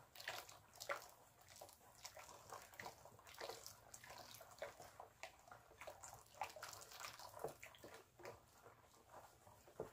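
Faint wet stirring of thick soap batter in a plastic bowl with a wooden spoon while lye solution trickles in, giving small irregular splashes and clicks.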